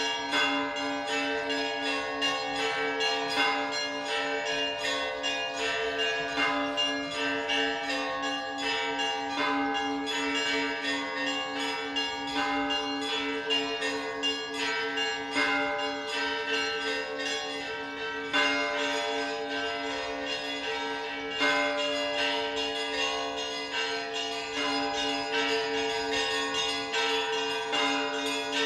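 Orthodox church bells ringing (zvon): smaller bells struck in rapid succession over the steady hum of larger bells, with a few heavier strokes standing out.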